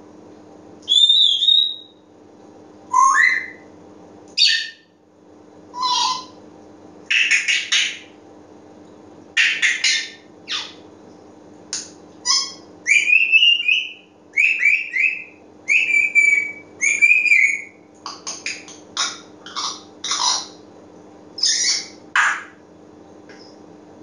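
African grey parrot calling in a long string of short whistles, chirps and harsh squawks, about one a second, some of the whistles gliding up or down in pitch.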